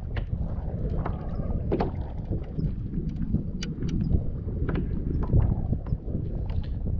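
Wind buffeting the microphone as a steady low rumble, with scattered small clicks and taps over it.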